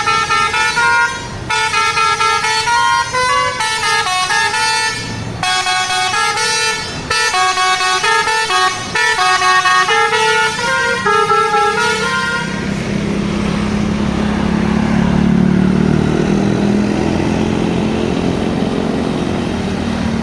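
A tour bus's basuri, a multi-tone 'telolet' musical air horn, plays a melody in quick stepping notes for about twelve seconds, then stops. The bus's engine keeps running underneath and is left on its own after the horn ends.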